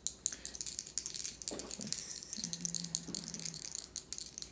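Dice rattling in a closed hand, shaken continuously with quick clicking.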